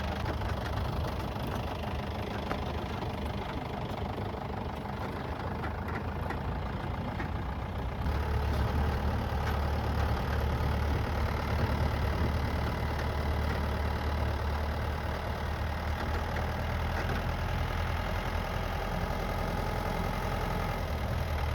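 Safari jeep's engine running, a steady low drone that gets louder about eight seconds in.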